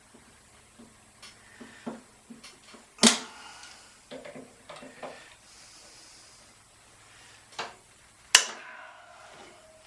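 Hand tools working on metal: two sharp, ringing metal clanks about three seconds in and again about eight seconds in, with lighter taps and clicks between, as a stuck key is worked out of a generator shaft.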